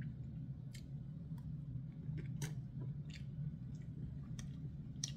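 A man chewing a mouthful of quesadilla and salad greens, with scattered short wet mouth clicks through it, over a steady low hum.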